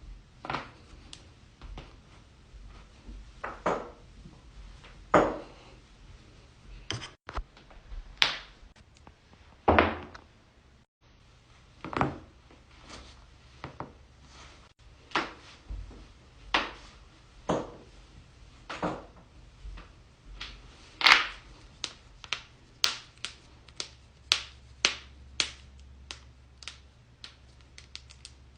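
Joints cracking: a long run of sharp, separate pops, a second or two apart at first and coming faster, about two a second, near the end.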